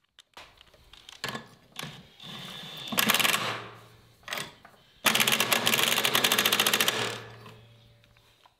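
Cordless impact driver hammering a replacement bolt into a mower deck bracket: a short burst about three seconds in, then a louder run of about two seconds from five seconds in that winds down. A few light clinks of tool on metal come before.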